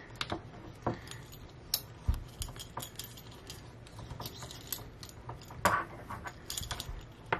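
Handling noise from a thick coax cable being looped by hand through a ferrite toroid: irregular small clicks, taps and rubbing as the cable and its metal connector knock and slide, with one louder knock near the end.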